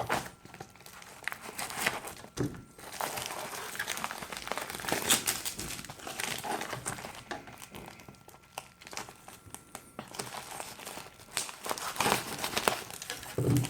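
Shipping parcel being opened by hand: irregular crinkling and rustling of packaging with scattered small clicks and knocks.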